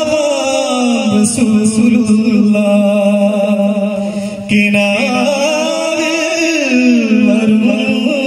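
Devotional chanting of a daf (duff) performance: voices singing a slow, winding melody over a steady held low note. The sound gets suddenly louder about four and a half seconds in.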